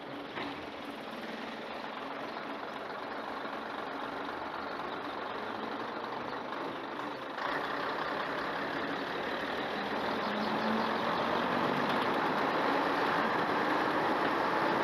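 Class 121 diesel railcar running as it rolls slowly along a station platform, heard from on board: a steady engine and rail noise that gets louder and brighter about seven seconds in.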